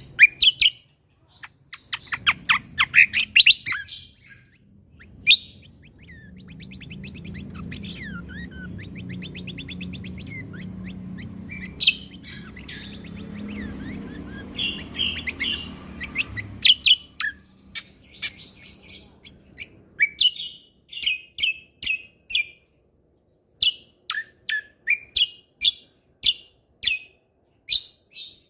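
Cucak kombo (kecial kombo) songbird singing, with sharp, rapid chirps in quick runs, a fast trill in the middle, and a long series of short repeated notes in the second half. A low steady hum lies under the middle stretch.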